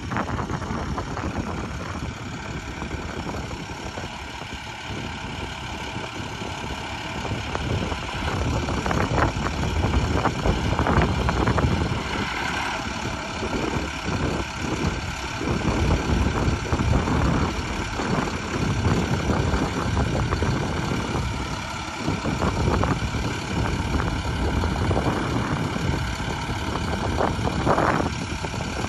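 Sign truck's engine idling steadily, with its even hum and some low rumble that swells and eases.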